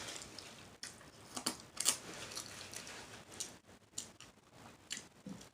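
Close-miked eating of a seafood boil: scattered sharp clicks and crackles of crab shell and mouth sounds, the loudest a pair about one and a half and two seconds in.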